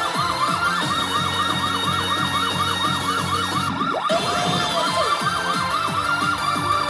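Sankyo P Fever Powerful 3 pachinko machine's electronic sound effects while its digital fruit-and-7 reels spin: a fast warbling tone repeating several times a second. About four seconds in a short tone sweeps up, holds briefly and falls away.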